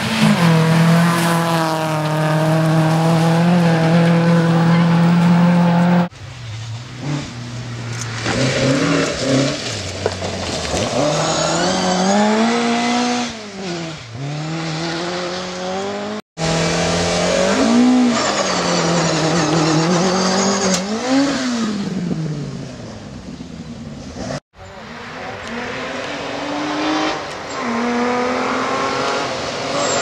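Rally cars passing one after another on a gravel stage, in four short cuts. The first holds steady high revs; the others rev up and fall back again and again through gear changes and lifts as they go by.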